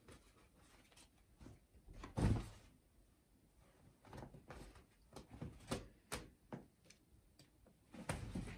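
A cat at play knocking and thumping against things: irregular knocks and light clicks, with one heavier thump about two seconds in.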